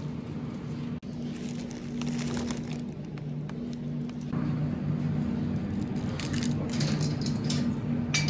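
Car running, heard from inside the cabin: a steady low drone of engine and road noise, with small clinks and rattles scattered through it.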